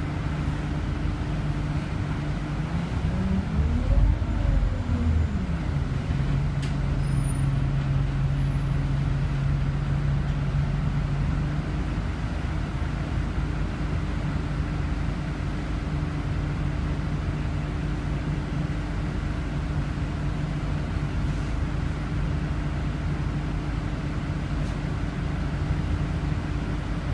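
Scania Omnicity city bus's diesel engine heard from inside the passenger cabin: about three seconds in it revs up and falls back as the bus pulls away, then runs steadily at a lower, even note while the bus drives on.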